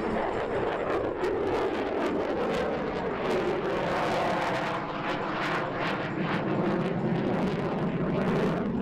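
F-16C fighter jet's engine roar in flight, a dense steady rush with rapid crackling through it.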